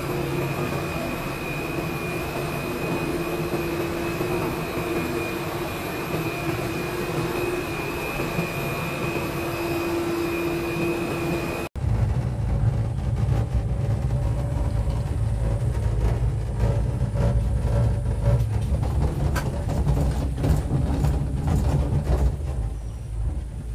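Cable car station drive machinery running: a steady mechanical hum carrying a constant high whine and a lower steady tone. About halfway through it gives way abruptly to a low, fluttering wind rumble on the microphone inside a moving open-windowed cable car gondola.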